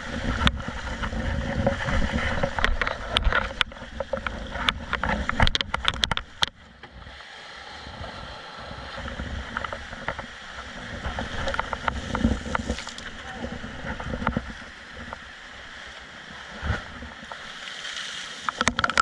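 Water sloshing and splashing around a kayak out in waves, with sharp knocks now and then. It is loud with a low rumble for about the first six seconds, then calmer.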